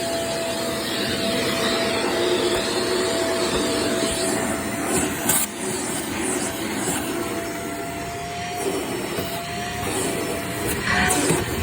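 Vacuum cleaner running with a steady motor whine that dips and returns, as it is worked over carpeted stairs, with several short crackles of debris being sucked up.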